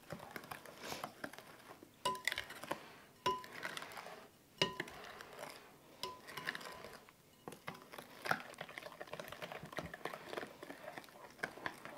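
A spoon stirring flour-and-milk batter in a glass mixing bowl: soft wet scraping, with several clinks of the spoon against the glass that ring briefly.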